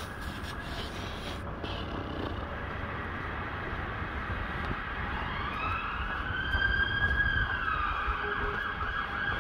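Emergency vehicle siren wailing over the low rumble of city traffic; its pitch rises about halfway through, holds, then drops near the end and switches to a fast warble.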